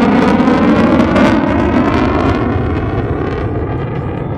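Lockheed Martin F-35A's single Pratt & Whitney F135 turbofan running in afterburner overhead: loud jet noise with a dense crackle, loudest in the first second or so and easing slowly as the jet moves away.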